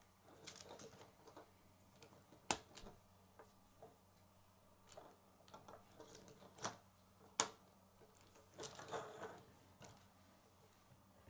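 Plastic K'nex pieces clicking and rattling as they are handled and snapped onto the model. There are a few sharp clicks, the loudest about seven and a half seconds in, with softer rustling of parts between them.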